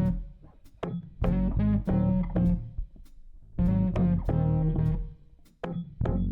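Background music: plucked bass and guitar notes in short phrases with brief pauses between them.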